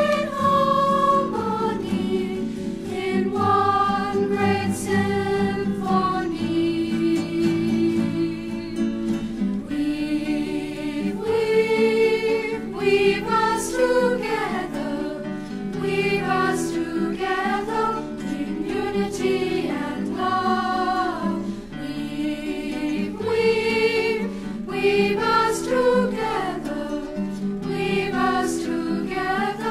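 Background music: a song with voices singing over a sustained accompaniment.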